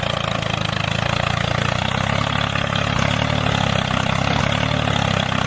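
A motor running steadily, a constant hum with a rushing hiss over it.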